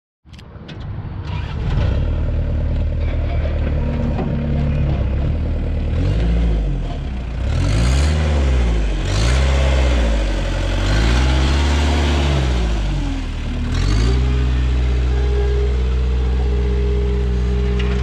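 New Holland LS160 skid steer's diesel engine running, its speed rising and falling several times before it settles to a steady run about three-quarters of the way in.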